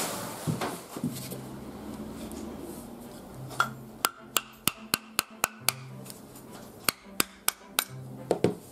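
A small hammer tapping a wooden Japanese kanna plane to loosen its blade for disassembly: about seven sharp taps at roughly three a second, a short pause, then four more.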